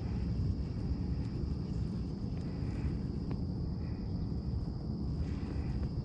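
Lakeside ambience: a steady low rumble with a constant high-pitched insect chorus above it, and a few faint short calls.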